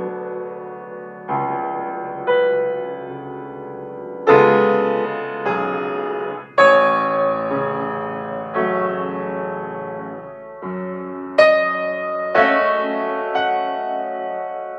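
Upright piano playing a slow, tender melody over full chords. Each chord is struck and left to ring and fade before the next, roughly one every one to two seconds.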